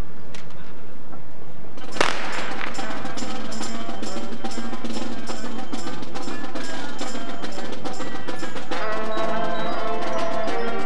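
Marching band percussion starting up: a loud hit about two seconds in, then a steady pulse of drum and mallet strikes with pitched notes underneath, and held notes joining in near the end.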